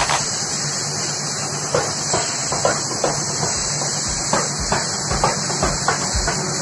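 Steady hiss of compressed air from a paint spray gun during spray-painting, with a faint low hum and a few light ticks.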